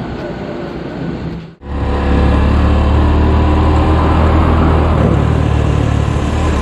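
Roadside traffic noise with vehicle engines. After a sudden cut about a second and a half in, a motorcycle's engine runs steadily as it rides along a town street.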